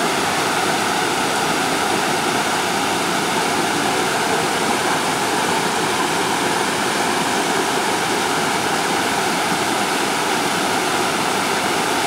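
Water of a small waterfall cascading over several low rock ledges into a shallow pool: a steady, unbroken rush and splash.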